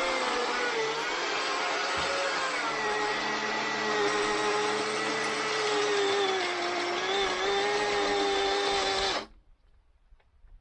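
Battery-powered Husqvarna chainsaw running under load, its motor pitch sagging lower, then stopping abruptly about nine seconds in. The battery is running flat.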